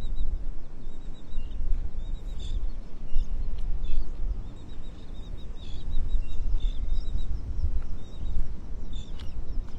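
A flock of birds calling in many short, high chirps over a heavy, steady low rumble.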